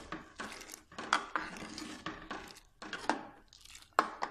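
Steel ladle stirring milk tea in a steel saucepan, scraping and clinking against the pot in irregular strokes, with the loudest clink about four seconds in.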